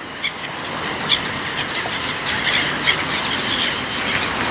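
Seagulls giving short cries over a steady rushing noise.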